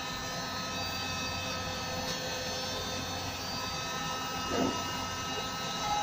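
Battery-powered hydraulic crimper's pump motor running steadily as it presses a lug onto a transformer low-voltage cable: a steady machine drone with several held tones.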